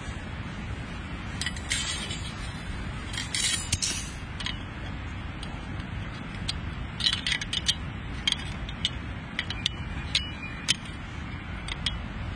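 Scattered small metal clicks and clinks with a few short rustles, as camping gear is handled, over a steady low rumble.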